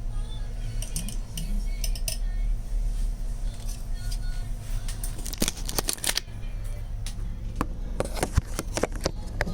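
Small metal repair tools clicking and tapping on a phone's circuit board, in quick clusters of sharp clicks, the busiest about halfway through and near the end, over a steady low hum.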